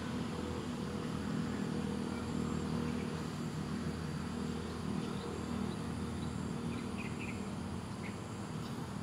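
Steady low hum of an engine running, with a few faint, short high chirps about seven seconds in.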